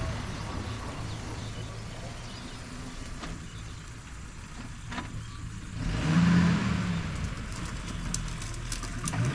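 Maruti Suzuki Gypsy 4×4's petrol engine driving off-road over rough dirt. It revs up loudly about six seconds in, then settles again.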